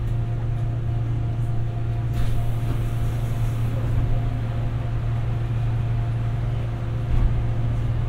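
Busan Metro 2000 series subway car running, heard from inside the car: a steady low rumble with faint steady tones above it, and a brief hiss about two seconds in.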